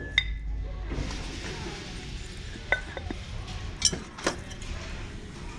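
A few light clinks and knocks of hard store items being handled on a shelf, over a steady background hiss of store ambience.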